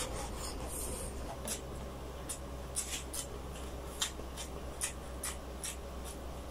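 Close-miked mouth sounds of a person chewing saucy chicken: a run of sharp, wet clicks and smacks at an uneven pace, over a steady low hum.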